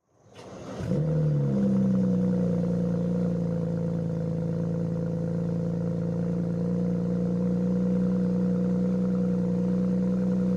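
A 2009 BMW 335i's twin-turbo inline-six starting: a brief crank, then it catches about a second in and settles into a steady idle.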